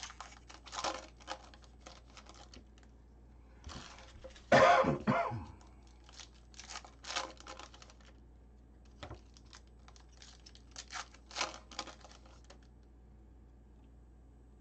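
Foil wrapper of a 2020 Topps Gold Label baseball card pack torn open and the cards slid and flicked through by hand: a run of short crinkles and clicks. A single cough about four and a half seconds in is the loudest sound.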